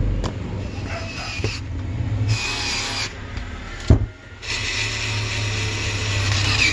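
Rubbing and scraping of parts and tools being handled, with one sharp knock about four seconds in.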